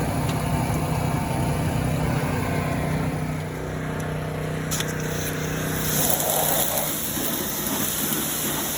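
Small gasoline engine of a pressure washer running steadily. A high hiss grows louder about five seconds in, and the engine's tone shifts around six seconds in.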